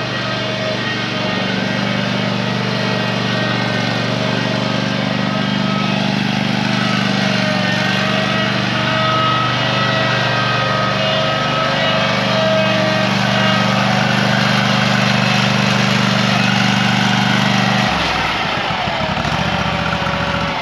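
Ride-on lawn mower, fitted with a swamp flotation kit, running at a steady speed, a steady whine over the engine note. About eighteen seconds in the engine note drops and changes.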